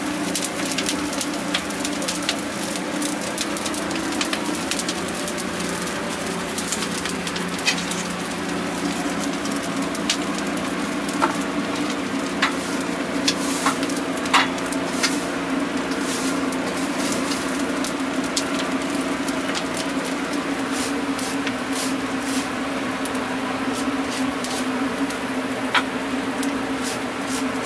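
Straw fire burning under a wire-mesh grill of roasting hagfish: a steady rush of flame with scattered sharp crackles and pops, most between about 7 and 16 seconds in. A steady low hum runs underneath.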